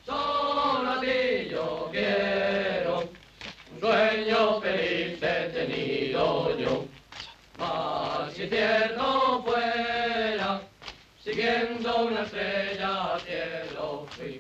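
A group of voices singing a song together, phrase after phrase with short breaths between.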